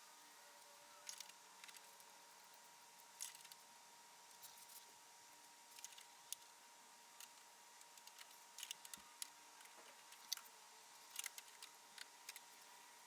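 Near silence, broken by faint, scattered small clicks and ticks at irregular intervals, with a faint steady high tone underneath.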